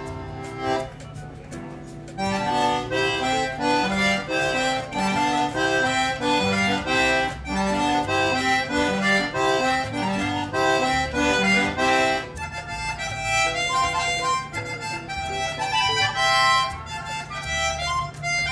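A concertina played by hand: a tune of quick-moving melody notes over chords, with a short break about a second in before the playing picks up again.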